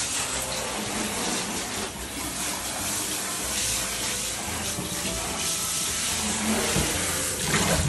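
A handheld shower head running steadily, its spray falling into a shallow plastic tub of water and onto the bathroom floor. A small-clawed otter moving in the tub adds splashing.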